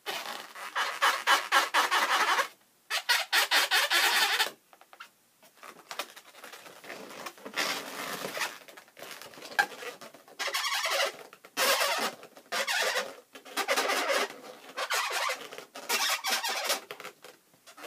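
Marker pen squeaking across inflated latex balloons as dots are drawn on them. It comes in about eight short bursts of a second or two each, with brief pauses between strokes.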